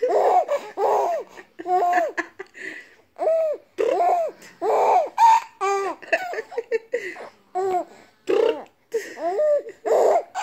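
Young baby laughing and cooing: a string of short high-pitched vocal sounds, each rising and then falling in pitch, coming about once a second.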